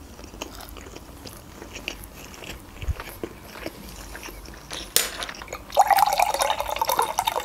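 Soft chewing and mouth clicks, then from about six seconds in juice poured from a carton into a drinking glass. The pour's pitch rises slightly as the glass fills.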